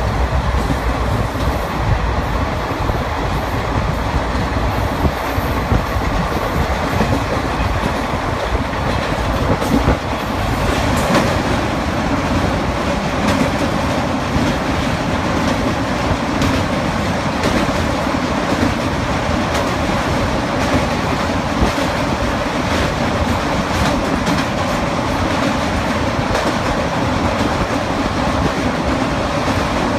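Indian Railways passenger coach running at speed, heard from inside: a steady rumble of wheels on rail with scattered clickety-clack over the joints. About ten seconds in the sound shifts to a fuller, lower rumble as the train runs onto a river bridge.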